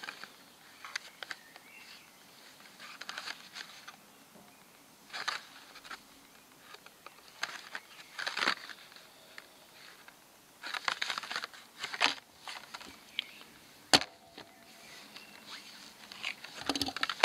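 A plastic blister pack on a cardboard card handled in the hands: scattered crinkles and taps, with one sharp click about fourteen seconds in.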